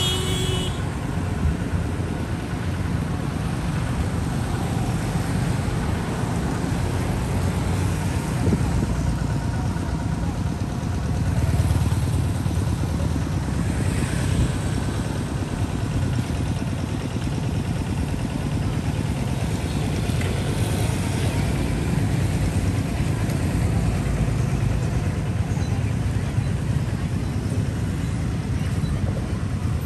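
Steady outdoor street noise: a continuous low traffic rumble with motorbikes passing now and then.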